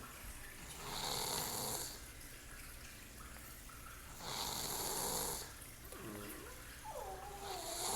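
A sleeping person snoring: three long snores about three seconds apart, with a wavering higher-pitched tone just before the last one.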